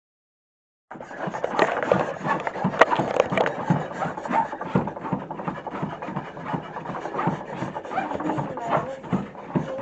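Silence for about the first second, then continuous handling noise from a camera being carried and swung around: rubbing and scraping against the microphone with many small knocks.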